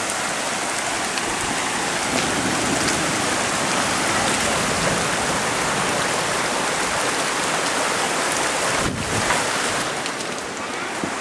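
Steady rushing of storm runoff flooding across the yard, with the tail end of a rain shower.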